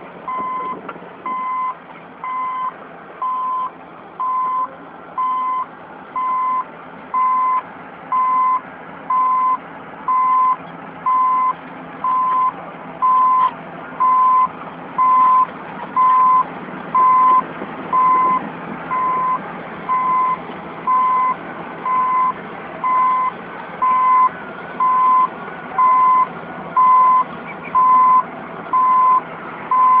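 Caterpillar D8N bulldozer's backup alarm beeping steadily, about once a second. Under it are the dozer's diesel engine and tracks. The beeps get louder toward the end as the machine comes closer.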